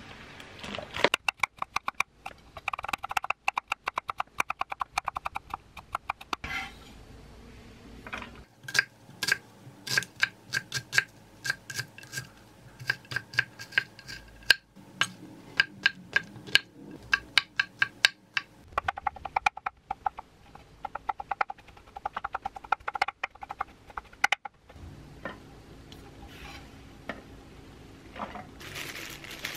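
Kitchen knife chopping onion on a wooden cutting board: runs of quick, sharp strikes, several a second, broken by a short pause after about six seconds and another near the end.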